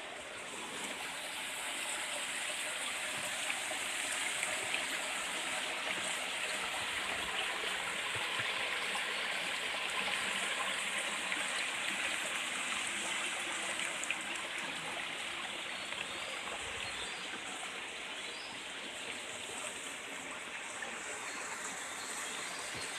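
Small river flowing: a steady rushing and babbling of running water, slightly louder in the first half.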